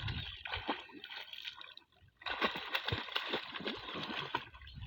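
Water splashing and sloshing from children swimming, a busy, irregular run of splashes with a brief gap about two seconds in.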